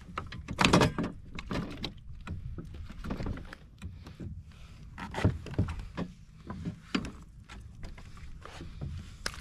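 Irregular knocks, taps and rustles of a fish and tackle being handled aboard a plastic fishing kayak, over a low steady rumble.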